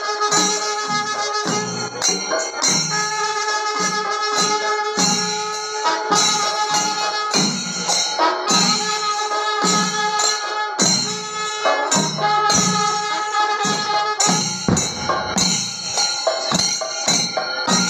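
Kerala temple festival percussion: drums beating about twice a second with cymbals jingling over them, under a steady held note.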